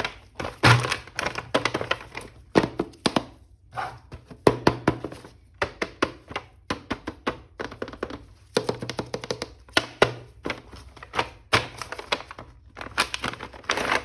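Rapid, irregular plastic clicks, taps and knocks from a toy action figure and its packaging being unpacked and handled, with a couple of short pauses.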